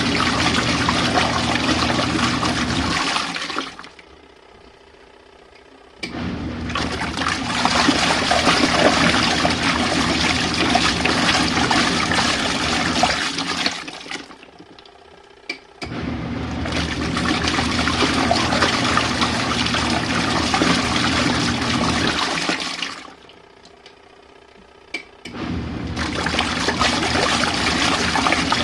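Small RV washing machine agitating: the motor hums and the water churns for about seven or eight seconds at a time, stopping for two to three seconds in between, three times. A sharp click comes just before the washer restarts after its pauses.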